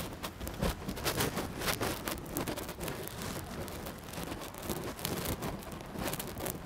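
Room noise of a seated audience writing in notebooks: irregular rustling of paper and small clicks and taps over a steady hiss.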